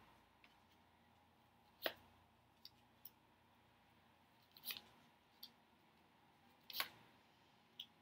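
A deck of tarot cards shuffled by hand: about seven short, soft clicks and slaps of cards against one another, spaced irregularly over an otherwise near-silent room.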